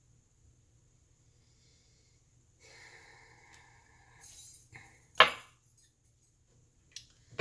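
Quiet at first, then a faint ringing tone, a brief rustle and a few sharp clicks and knocks, the loudest about five seconds in and two more near the end: tarot cards being shuffled and knocked on the table.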